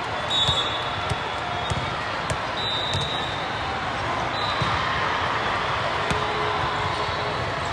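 Basketball game on a hardwood court: a ball bouncing with irregular thuds and sneakers giving several short high squeaks, over the steady din of the gym.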